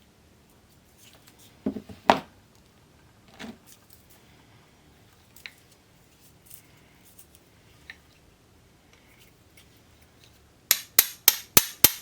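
Small hammer knocking on a stuck, heat-seized pinball coil to work it loose: a couple of sharp metal knocks about two seconds in, light clinks, then a quick run of six sharp taps near the end, about five a second.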